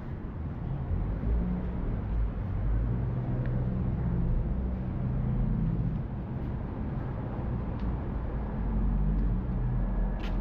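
City street traffic: a steady low rumble of vehicles running by, with a few faint ticks.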